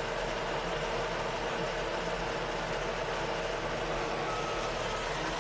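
Skid steer engine running steadily, heard from inside its cab. Near the end, its backup alarm starts to beep.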